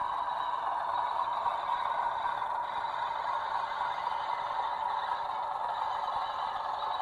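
Sound-fitted 00 gauge BR blue diesel locomotive model running toward the platform, its sound decoder playing a diesel engine drone through the model's small speaker. The drone is steady and thin with little bass, and grows slightly louder as the locomotive approaches.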